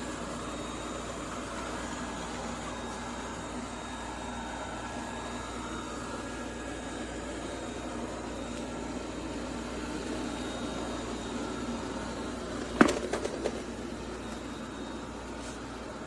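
ILIFE A12 Pro robot vacuum running with a steady whir, with a single sharp knock about three seconds before the end, followed by a couple of smaller clicks.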